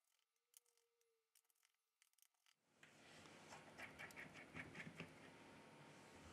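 Near silence with faint ticks and scratches of a precision screwdriver turning out the small screws of a Samsung Galaxy A6+ middle frame; a faint hiss comes in a little before halfway.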